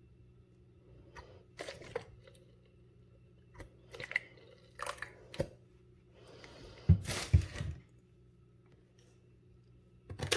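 A tablespoon scooping thick marinade paste and knocking against the bowl as it is added to yogurt: scattered short clicks and scrapes, with a louder knock about seven seconds in.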